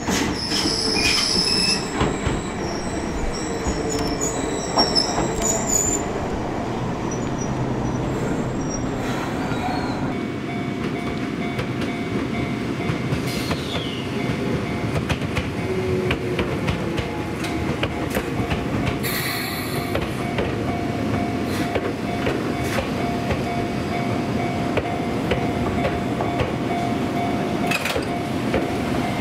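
Enoshima Electric Railway (Enoden) electric trains running slowly on the track, wheels rumbling on the rails with high-pitched wheel squeal. About ten seconds in the sound changes to another passing train, with a steady tone held over the rumble.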